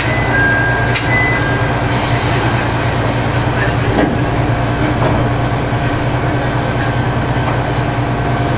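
Diesel engine of an MRT300-series railcar idling steadily while the train stands at a platform. A few short high tones sound in the first second or so, and a hiss runs for about two seconds from about 2 s in.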